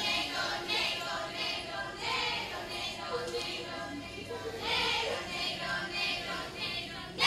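A group of voices singing or chanting in repeated phrases over a recorded music track.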